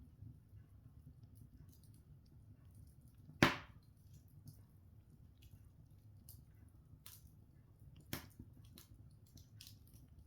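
Open log fire crackling in a stone hearth: scattered small crackles over a low steady burn, with a sharp loud pop about three seconds in and a smaller one near the end.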